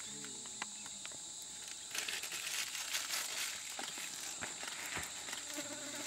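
Forest insects droning with a steady high-pitched whine, which thickens into a louder, hissier buzz about two seconds in. Faint murmured voices come in the first second.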